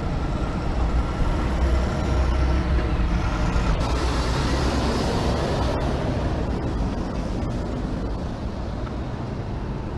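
Diesel engine of a Mack semi-truck running as it pulls a tanker trailer past, with tyre and road noise. Loudest a few seconds in as it goes by, then slowly fading.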